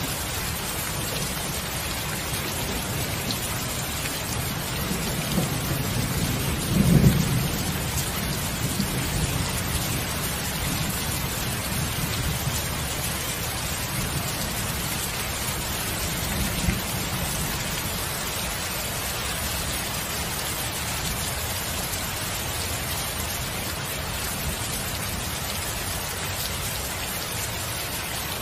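Steady rain with a low, rolling rumble of thunder that builds about five seconds in and peaks about two seconds later. A second, fainter rumble comes about halfway through.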